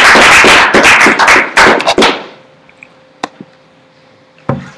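Audience applauding, dense clapping that dies away about two seconds in. After it, a quiet room with a couple of short knocks.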